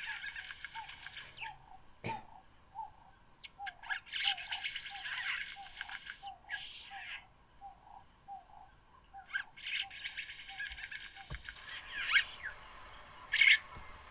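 Birds calling: bursts of high, buzzy chattering song with a few sharp calls, over a steady run of low, evenly repeated notes, about two and a half a second, that stop a few seconds before the end.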